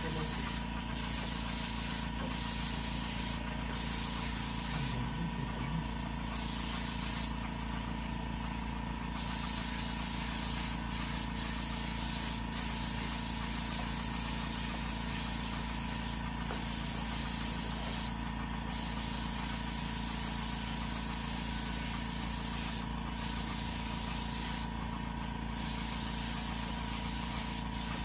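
Paint spray gun hissing as it sprays, the hiss breaking off briefly every few seconds as the trigger is let go, over the steady running of a small air compressor.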